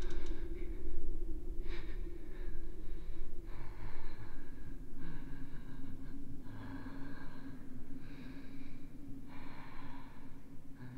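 A young woman's heavy, frightened breathing: quick, audible breaths in and out, about one a second, over a low steady drone.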